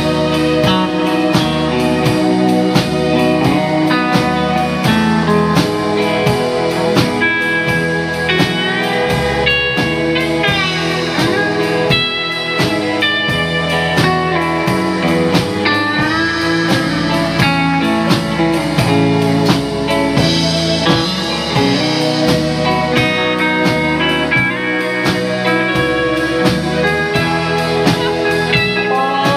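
Live band playing an instrumental passage: an electric guitar takes the lead with bending notes over keyboard, bass and drums.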